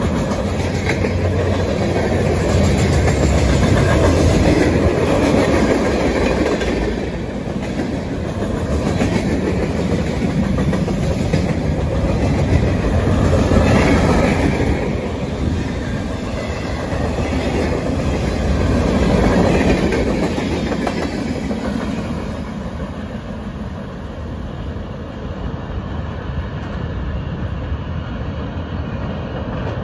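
Freight cars of a passing Norfolk Southern mixed freight train rolling by: a steady rumble with the clickety-clack of wheels over rail joints, swelling and easing several times, then dying down over the last several seconds as the end of the train pulls away.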